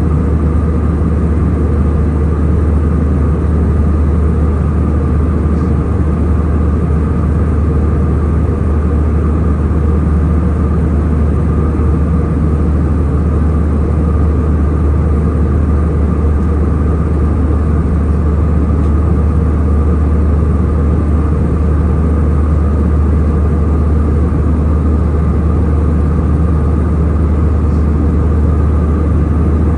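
Airliner cabin noise in flight: a steady, unchanging low drone of engines and rushing air, with a fainter steady hum above it.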